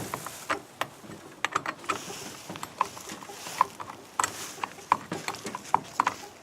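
Chainsaw bar and chain being handled: irregular light metal clicks and ticks, a few each second.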